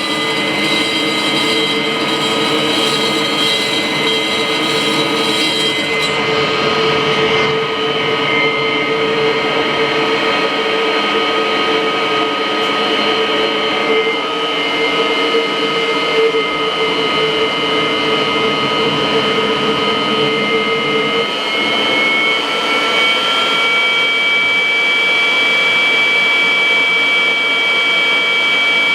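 Kirby vacuum cleaner running steadily with its hose attached: a loud motor rush with a whistling whine on top. About three quarters of the way through, the whine steps up slightly in pitch.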